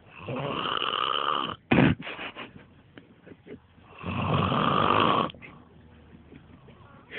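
A man snoring heavily: two long snores about three seconds apart, with a short sharp sound and a few small clicks just after the first.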